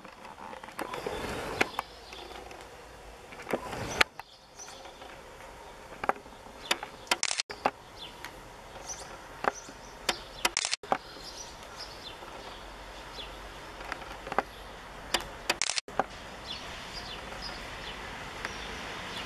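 Garden ambience: short bird chirps here and there, scattered sharp ticks and taps, and a steady low background rumble. The sound drops out briefly three times.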